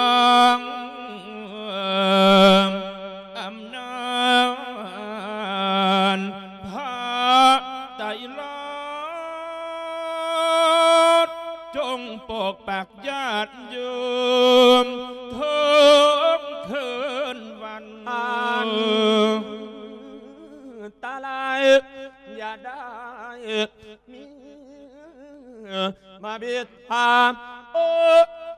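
A Thai Buddhist monk singing lae, the melodic sung sermon, here a funeral lae sending off the spirit of the dead, into a handheld microphone. It is a solo male voice in long phrases of held notes that bend and waver, with short breaths between them.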